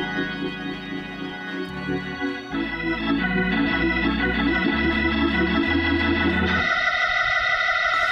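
Organ playing sustained worship chords over a moving bass line. The chords change every second or few, and near the end the low notes drop away as the playing moves higher.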